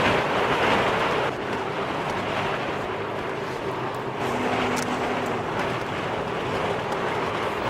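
Steady rushing wind buffeting the microphone, loudest in the first second or so.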